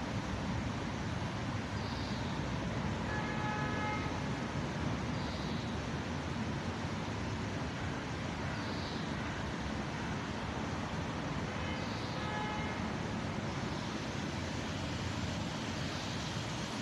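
City street ambience: a steady wash of traffic noise, with a brief horn toot about three seconds in and another around twelve seconds. A faint high chirp repeats about every three seconds.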